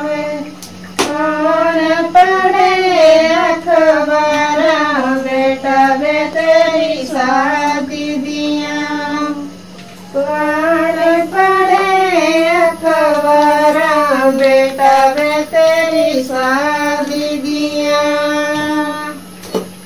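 A woman's high voice singing a Himachali folk wedding song unaccompanied, in two long phrases of the same melody with a short break about halfway through.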